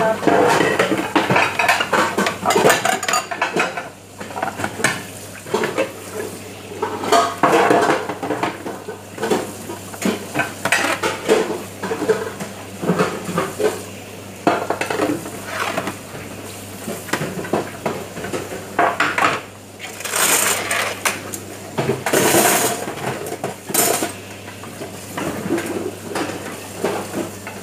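Metal trays, serving dishes and cutlery clattering and clinking against each other as they are hand-washed and stacked at a sink, with a few short hissing bursts near the end.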